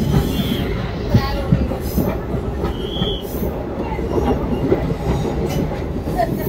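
Train running along the track: a continuous rumble with irregular clatter and knocks from the wheels and carriages. Brief high squeaks come twice, about half a second in and about three seconds in.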